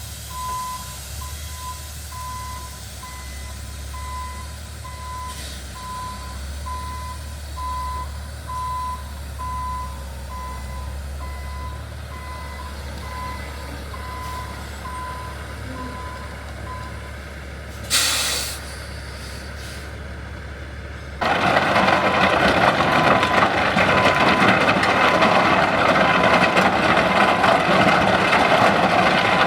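Heavy truck's backup alarm beeping steadily, about one and a half beeps a second, over the low run of its engine while reversing. Near 18 s a short air brake hiss, and from about 21 s a much louder steady rushing noise takes over, with the beeping still faint beneath it.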